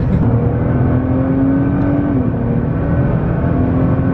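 Nissan GT-R R35's twin-turbo V6 and road noise heard from inside the cabin at highway speed: a steady droning note over loud road rush, dipping briefly about two seconds in.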